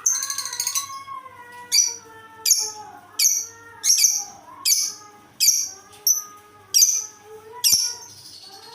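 Pet lovebird giving a regular series of about ten sharp, high chirps, roughly one every three-quarters of a second, over a lower wavering tone.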